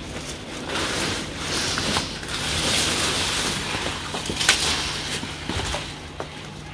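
Moringa leaves being rustled and snapped off their stalks by hand while the greens are sorted, with scattered sharp clicks, the sharpest about four and a half seconds in, over a faint steady low hum.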